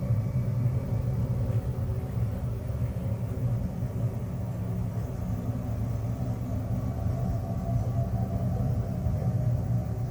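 Steady low droning rumble with faint held tones layered above it and a slightly fluttering loudness. It is an ambient 'sound of space' track, which the uploader presents as Saturn's electromagnetic emissions converted into audible sound.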